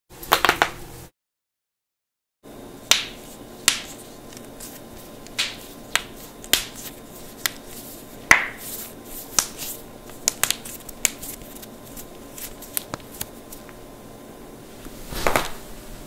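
Knuckles cracked by pressing interlaced fingers: a string of about twenty sharp, irregularly spaced pops. It opens with a short loud burst of sound and a second of silence, and a longer, duller noise comes near the end.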